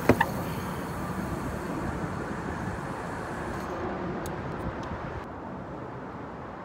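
Steady road traffic noise from the highway bridge overhead, with two sharp clicks right at the start.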